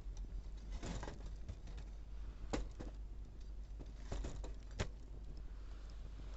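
Wood campfire crackling, with irregular small pops and two sharper snaps, one about halfway through and one near the end, over a steady low rumble.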